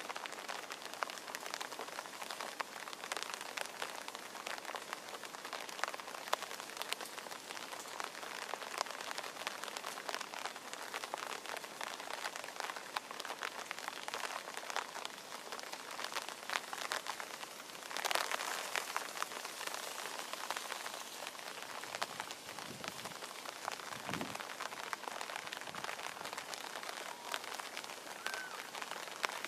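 Steady rain falling, a constant hiss dotted with the ticks of single drops, briefly heavier about two-thirds of the way through.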